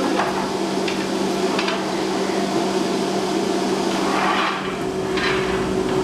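Hand hammers striking a gong as it is forged: about six irregular metal blows, each ringing briefly. A steady low hum runs underneath.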